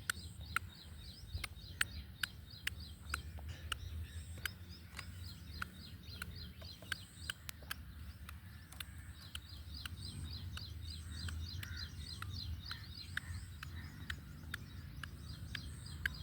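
Sharp, irregular clicks a few times a second, typical of a black francolin pecking at food. Behind them come rapid runs of high bird chirping and a low rumble.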